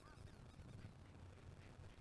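Near silence: a steady faint low hum, with a few faint, brief high-pitched calls early on.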